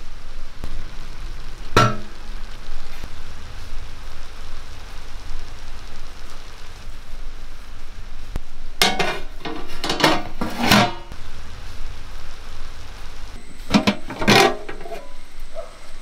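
Steady sizzling hiss from a steel pot of biriyani on a wood-fired hearth, with a few clattering knocks of metal against the pot: one about two seconds in, a cluster in the middle and another near the end.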